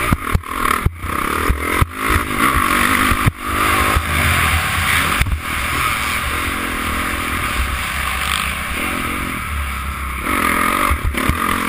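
Honda CRF450 four-stroke single-cylinder dirt bike engine revving up and down as it is ridden hard, heard through a helmet-mounted camera with a constant low wind rumble on the microphone. Several sharp knocks come in the first few seconds.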